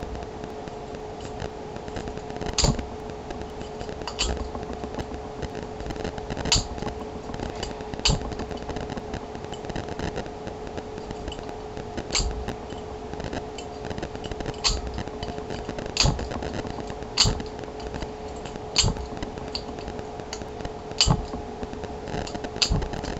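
Sharp metallic clicks from a pick and a thick tension wrench working a Chinrose disc padlock, a copy of a Master disc lock, as the wrench is struck again and again to turn the discs. About a dozen loud clicks come at uneven gaps of one to two seconds, with fainter ticks between them, over a steady hum. The lock is not yet opening.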